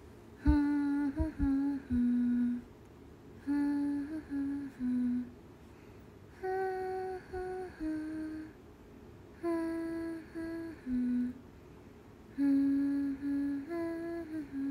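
A woman humming a simple tune in five short phrases of a few held notes each, with pauses of about a second between them.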